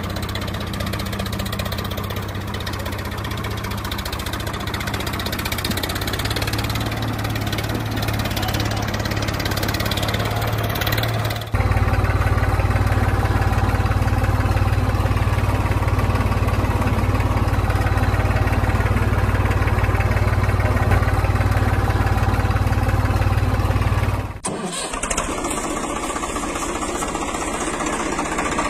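Tractor engine running steadily at idle, in three spliced stretches that change abruptly about 11 seconds in and again about 24 seconds in.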